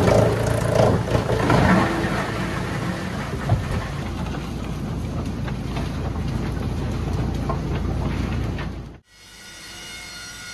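Large conveyor-fed wood chipper running under load, a loud steady rumble with knocks and cracks of logs being crushed in the first couple of seconds. It cuts off abruptly about nine seconds in, leaving a quieter steady hum.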